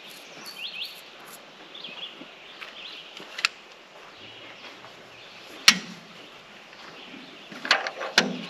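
Small birds chirping in short calls for the first few seconds over steady outdoor background noise. A few sharp knocks cut through, one louder knock a little under six seconds in, and a quick cluster of knocks near the end.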